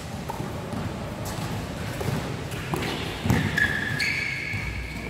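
Basketball game in a large echoing hall: scattered knocks of the ball and footfalls on the court, with a loud thud a little past three seconds in. A high-pitched squeal holds for over a second near the end.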